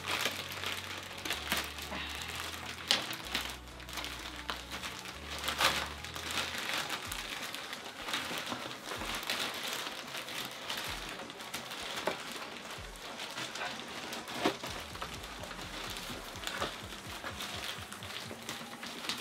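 Thin black plastic packaging bag crinkling and rustling as it is pulled and torn open by hand, with irregular sharp crackles.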